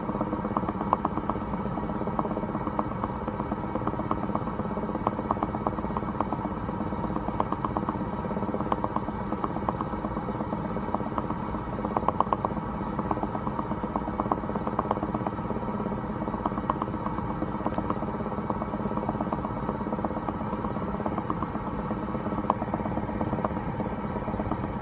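2016 BMW X5 (F15) driving, heard from a dashcam inside the cabin: a steady engine and road drone with rapid, irregular popping and clicking, several pops a second, the bubbling/popping noise the owner is documenting.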